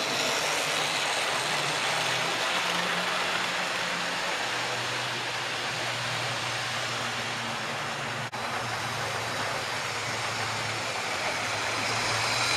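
Model railway trains running: a steady whirring rumble of electric motors and wheels on the track. It grows louder near the end as a model steam locomotive comes up close on the nearest line.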